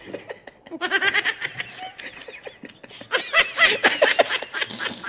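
Young men laughing hard in bursts of high-pitched giggles and breathy snickers, with a louder burst about three seconds in.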